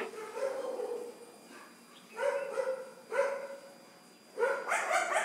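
A dog barking in short calls, about four times, with a quicker run of barks near the end.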